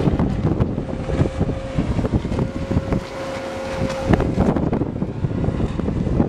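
Wind buffeting the camera's microphone high up on a parasail, a rough, gusty rumble with irregular thumps. A faint steady whine runs under it and stops about four seconds in.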